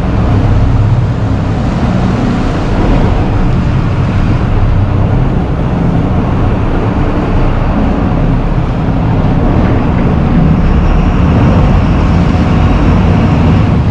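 Venetian water bus (vaporetto) underway: a steady low engine rumble with a rushing hiss over it.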